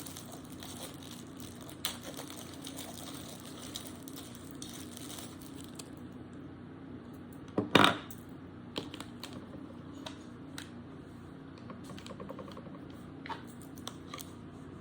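Small clicks and light knocks of the clock's power cord and parts being handled out of their packaging, with one louder knock about eight seconds in, over a faint steady hum.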